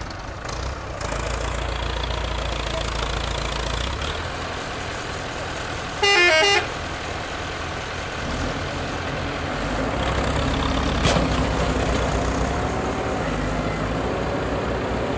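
Tractor engine running steadily as the Case IH JX65C strains to tow a snow-stuck Massey Ferguson 285. A short, loud vehicle-horn blast comes about six seconds in, and the engine gets louder from about ten seconds in.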